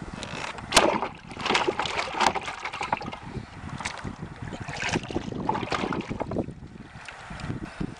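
Paddling a Native Watercraft Ultimate 14.5 kayak: the paddle splashes in the water, with scattered knocks and clicks and one sharp knock about a second in.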